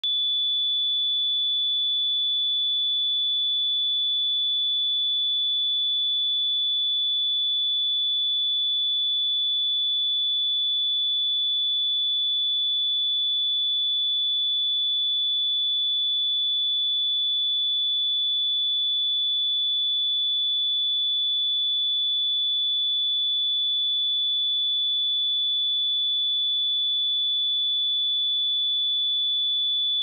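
A pure 3465 Hz sine-wave test tone, a single high-pitched steady whistle held at constant pitch and level.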